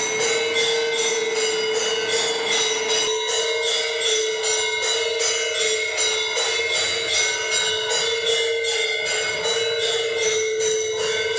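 Temple bell rung rapidly and steadily, about two to three strokes a second, its ring carrying on between strokes.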